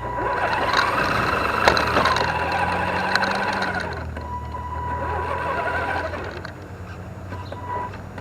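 Electric drivetrain of an Axial SCX10 RC rock crawler whining as the truck drives off, motor and gears picked up close by the microphone on its hood. There are two throttle surges: the first starts right away and eases off about four seconds in, the second comes a little later and fades. A few sharp clicks come from the chassis and wheels along the way.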